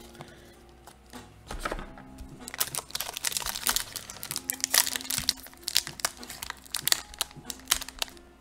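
Foil wrapper of a Commander Legends booster pack crinkling as it is handled and opened. The dense run of crackles starts about two and a half seconds in, after a few light clicks.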